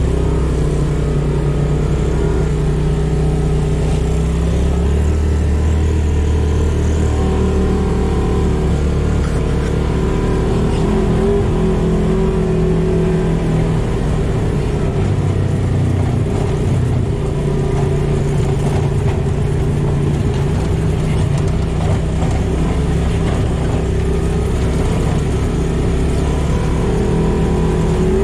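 Polaris RZR side-by-side engine running and driving along a dirt trail, heard from inside the open cab, its pitch rising and falling as the throttle is worked.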